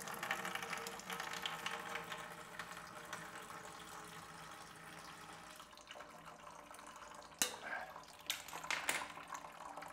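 Water draining out of a drinking fountain's chiller coil and tank into a bucket, a low trickle with air sucking in at the top of the tubing as it empties. A few sharp clicks near the end.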